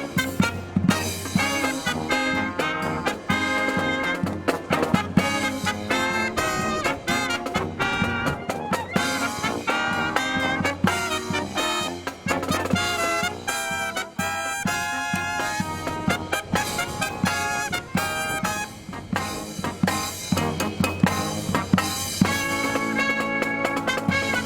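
Live marching brass band of trumpets, trombones, saxophones and drums playing an upbeat swing-style number. Strong wind rumbles on the microphone under the music.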